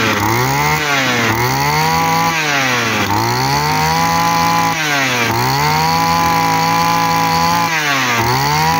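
Tanaka 20cc two-stroke brush cutter engine revved up and down by hand at the carburettor throttle, several quick blips and a few longer holds at high revs. It picks up and drops back sharply each time, responding quickly to the throttle.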